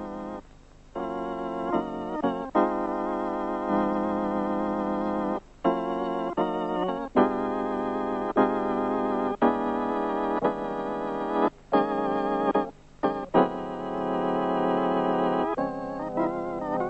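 Organ music: held chords with a wavering vibrato, changing every second or two with short breaks between them.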